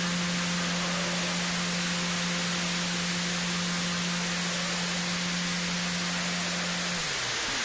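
Motor and propeller of a Thermik XXXL RC glider running at a steady pitch, heard from on board under a loud rush of airflow hiss. About seven seconds in the motor is cut and the hum winds down with a falling pitch.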